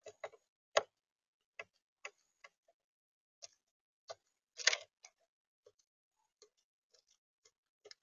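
A magpie pecking at seed in a plastic bird-feeder tray: a dozen or so irregular sharp taps of its bill on the seed and tray, the loudest cluster a little past halfway.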